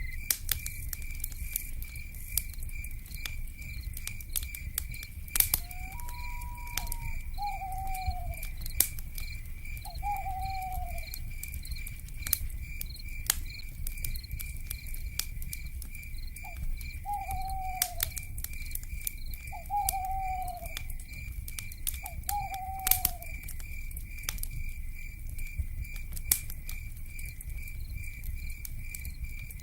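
Night forest ambience over a crackling fire, with sharp pops and a low steady rumble. Insects chirp in a steady pulsing trill, and an owl calls repeatedly with short falling whistled notes, about every two or three seconds through the middle.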